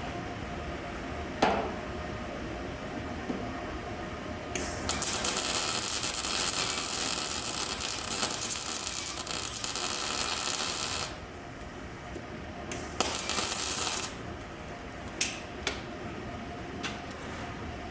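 Wire-feed welder laying a bead on a broken exhaust stud: a hissing, crackling arc that runs for about six seconds, then a second short burst, with scattered sharp metal clinks of tools.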